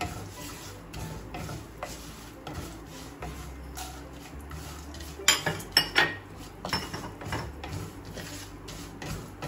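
A spoon clinking and scraping against a cooking pan while roasted gram and chopped nuts are stirred in ghee, with a burst of sharper clinks about five to six seconds in.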